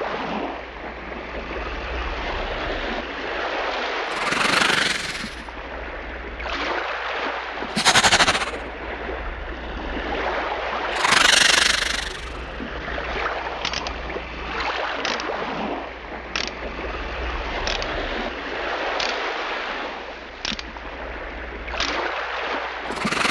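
Water sloshing and splashing as toys are moved through it, with three louder splashes spread through the first half and a scatter of short light knocks later on.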